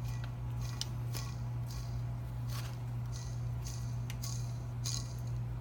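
Irregular short rustles and scrapes of hands handling and turning over a crankshaft, about a dozen in a few seconds, over a steady low hum.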